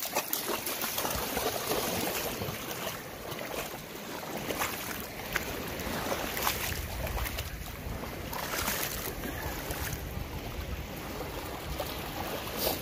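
Lake water splashing as a standard poodle wades and paddles through the shallows, over small waves lapping at the shore. From about halfway, wind rumbles on the microphone.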